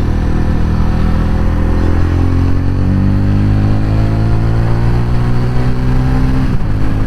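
TVS Ronin 225's single-cylinder engine pulling under acceleration on the move, its note climbing steadily, then dropping sharply about six and a half seconds in as the bike shifts up a gear.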